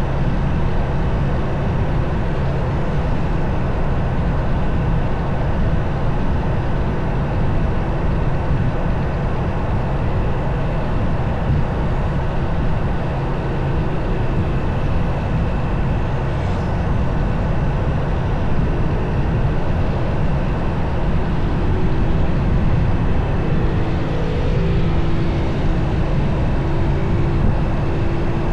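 Motorcycle ride: the engine runs steadily under a constant low rumble of road and wind noise, with small shifts in engine pitch in the second half.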